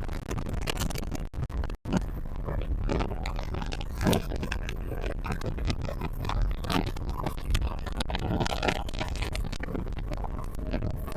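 Boat running at speed: wind buffeting the microphone with irregular crackle over a heavy low rumble, with the Yamaha 200 VMAX outboard and the hull running underneath.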